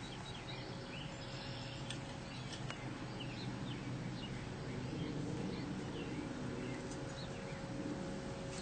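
Outdoor ambience: small birds chirping now and then over a steady low background noise.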